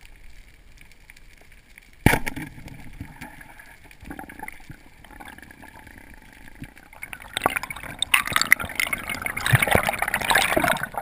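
Water gurgling and rushing past an underwater camera housing, with a sharp knock about two seconds in and a louder stretch of crackling, bubbling water noise in the last few seconds.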